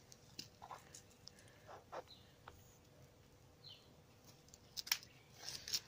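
Faint handling noises of airsoft gear: scattered soft clicks and rustles as a pistol goes into its belt holster and the kit is handled, with a cluster of louder clicks near the end. A bird chirps faintly a couple of times.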